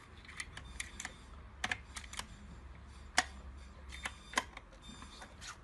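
Scattered light clicks and taps of a small screwdriver against the metal case and hex screw of a FUMA FA-560 automatic screw feeder as it is worked into the hopper-door screw, with the sharpest tap a little past the middle.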